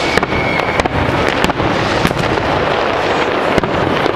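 New Year's Eve fireworks: many bangs and crackles overlapping in a continuous din, with a brief high whistle near the start.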